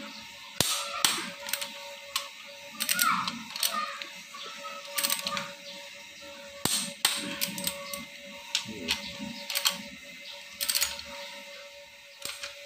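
Click-type torque wrench ratcheting and clicking in short bursts every second or so as the crankshaft main bearing cap bolts of a Mitsubishi L300 diesel engine are tightened to 8.5 kg, its sharp release click marking each bolt reaching torque. A faint steady hum sits underneath.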